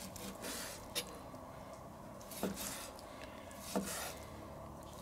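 A knife slicing through grilled entrecôte steak on a wooden cutting board: short scraping strokes, each ending in a light knock of the blade on the board, three times about a second and a half apart.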